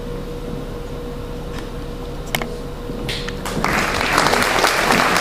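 Quiet hall background with a faint steady tone and a single click, then audience applause starting about three and a half seconds in and growing louder.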